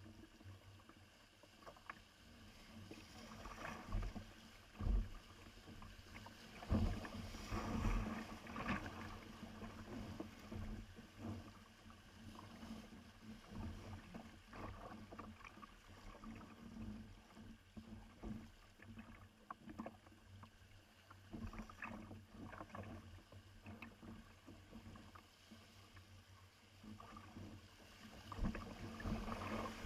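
Kayak on the river: water splashing and sloshing against the hull, with irregular knocks and thumps, heaviest about four to nine seconds in.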